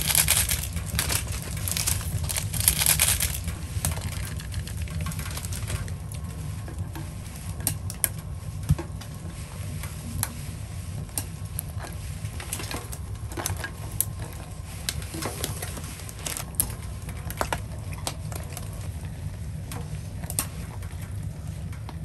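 Crab ramen cooking in a stainless-steel pot, over a steady low rumble. Through the first few seconds there is a loud rustling hiss as the soup packet is emptied in. After that come scattered clicks and knocks as crab legs go in and chopsticks stir the noodles against the pot.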